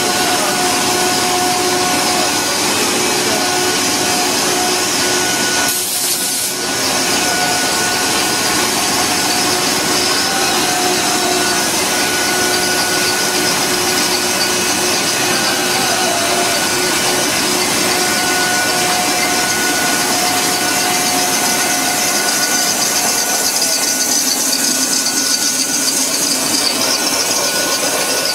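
Plastic pipe extrusion line running: a loud, even machine noise with faint held whining tones that fade in and out, and a brief dip about six seconds in.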